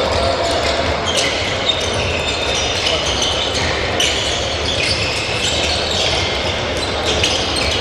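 Many handballs bouncing on a sports hall floor at once, an irregular patter of overlapping bounces, with short high squeaks of sports shoes on the court.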